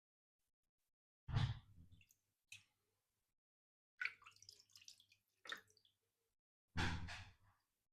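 Knife edge drawn across a wet 2,500 grit silicon carbide whetstone in several separate wet strokes, each starting sharply and fading, with short silences between.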